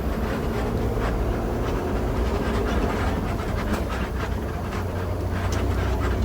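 Intercity bus on the move, its engine and road noise heard from inside the cabin as a steady low rumble, with scattered small rattles and knocks.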